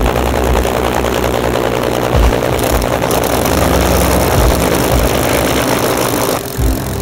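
Supermarine Spitfire's V12 piston engine starting up and running, a loud steady rumble with a low pulsing beat. The sound drops sharply and changes about six seconds in.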